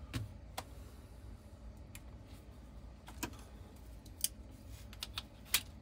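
A handful of short metallic clicks and clinks at irregular intervals from a Bushmaster AR-15 being handled, as its takedown pins are pushed through and the upper and lower receivers are worked apart.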